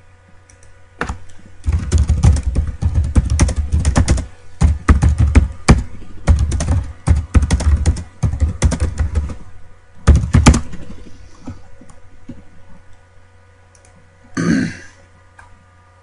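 Typing on a computer keyboard: fast runs of keystrokes that stop about ten and a half seconds in, over a faint steady hum. A short, louder noise follows near the end.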